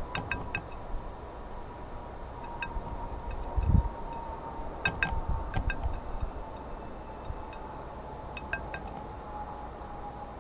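Blue jay's bill pecking against a glass seed dish: small ringing glassy clinks in quick clusters of two or three, several times over, with a dull thump a little under four seconds in.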